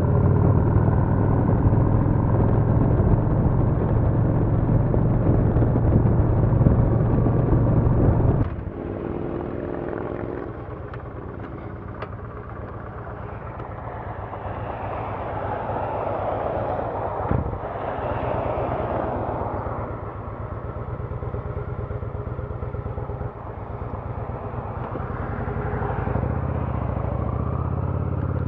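2007 Honda Shadow Aero 750's V-twin engine running under way while riding. It is loud and steady for about the first eight seconds, then the level drops suddenly and it goes on much quieter.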